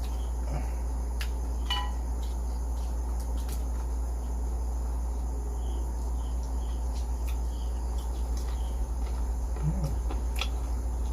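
Steady low hum with a few scattered sharp crunches of someone chewing crispy deep-fried pork skin, and faint cricket chirps in the background.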